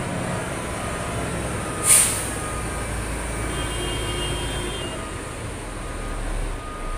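Heavy diesel truck engine running with a steady low rumble, and a short sharp air-brake hiss about two seconds in.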